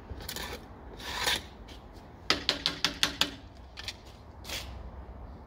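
Wooden barbecue utensils scraping and rubbing against the ribs and the cutting board. A little over two seconds in there is a quick run of about seven sharp taps, then one more short scrape.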